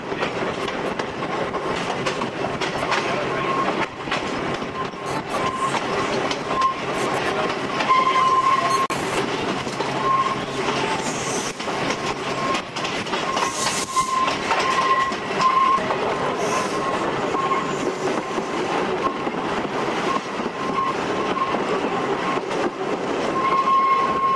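Manx Electric Railway tramcar running along the track, heard from on board: a steady rumble and clatter of the wheels on the rails, with scattered sharp clicks and a high tone that keeps coming and going.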